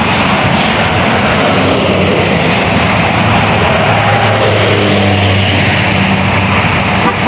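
Highway traffic rushing past, with a bus driving by close, its engine hum swelling about halfway through over a steady roar of tyres and wind.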